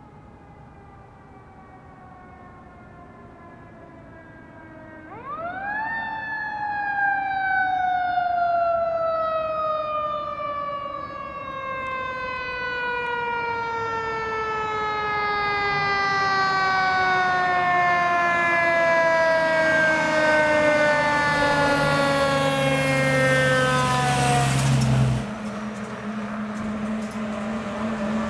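Fire truck siren: a faint falling wail at first, then about five seconds in it winds up sharply and falls slowly over the next twenty seconds. A truck engine's low rumble runs under it in the second half.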